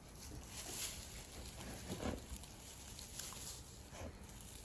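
Dalmatian puppies moving about in straw: faint rustling and light patter of paws, with a few soft brief knocks or scuffles.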